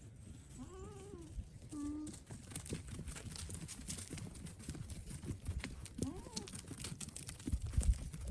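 Goat bleating three short times, amid steady crunching and rustling, with a couple of heavy thumps near the end.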